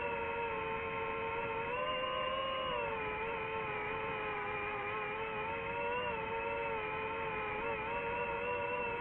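DJI FPV drone's propeller motors whining steadily in flight, the pitch rising a little about two seconds in and dropping back about a second later, over a low rush of air.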